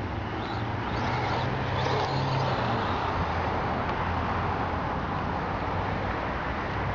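Brushless electric motor (Neu 1515/2Y) of a 1:8 RC short course truck whining in a few short rising sweeps as it accelerates across the grass, over a steady rushing noise.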